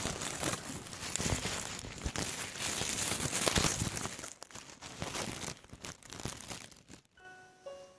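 Close, dense crinkling and rustling with scattered crackles. It stops about seven seconds in, and a few bright mallet-percussion notes of music begin.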